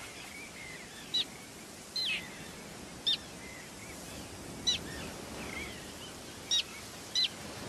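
Common terns calling: about six short, sharp, high calls spaced a second or so apart, over a faint steady outdoor hiss.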